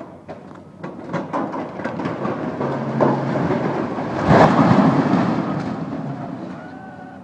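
A tall steel-framed stadium tower collapsing under long-reach demolition excavators: a series of sharp cracks and snaps as the structure gives way, swelling into a loud crash as it topples about four seconds in, then a rumble that slowly dies away. The excavators' diesel engines hum steadily underneath.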